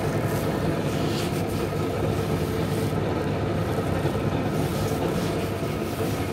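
WMF 5000 S bean-to-cup coffee machine running through a brew cycle as it makes a cup of coffee, a loud, steady mechanical drone.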